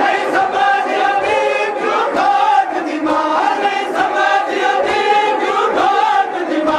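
A crowd of men chanting a noha, a Shia mourning lament, together in a wavering, many-voiced chorus, with sharp slaps from matam chest-beating mixed in.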